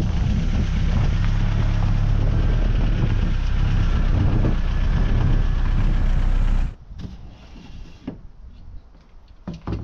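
An engine idling steadily, low and loud, which stops abruptly about two-thirds of the way through; a few light knocks follow.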